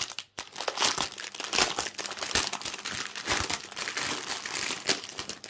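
Plastic packaging crinkling and rustling as it is handled, a dense, irregular run of small crackles.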